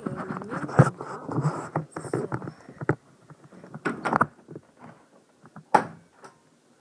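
Handling noise: rustling, scraping and scattered knocks as a handheld recording device is moved about, with cloth brushing against its microphone. Louder bursts of rustling come at irregular moments, with quieter gaps between them.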